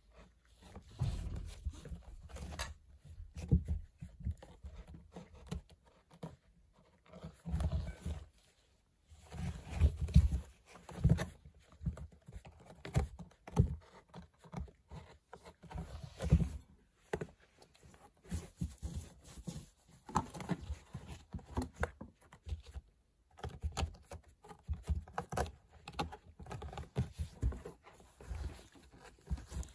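Cat clawing, rubbing and rolling on a corrugated cardboard scratcher: irregular scratching and rustling of the cardboard with soft thumps, stopping briefly a couple of times.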